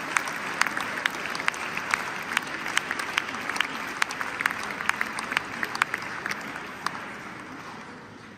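Audience applauding, with single sharp claps standing out of the steady clapping; it dies away near the end.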